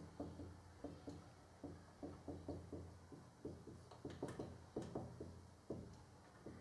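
Quiet background music of soft plucked notes, two or three a second, with two sharper ticks about four to five seconds in.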